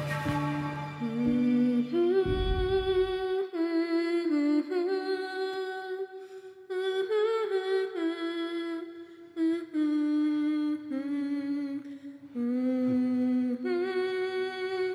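A single voice humming a slow, wordless melody, one note held for about a second before stepping to the next, with a few short breaks between phrases.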